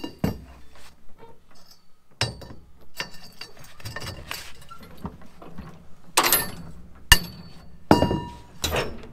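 Steel transport chains clinking and rattling on a wooden trailer deck as a lever-type chain binder is worked tight with a long cheater bar. A string of separate metal clanks, the sharpest about seven seconds in.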